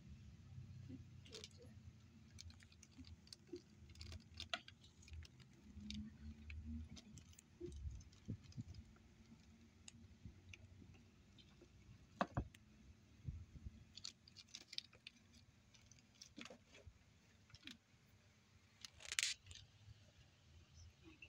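Faint, scattered taps, scratches and rustles of kittens scrambling and playing on plastic, with a low rumble in the first few seconds and one louder rustle near the end.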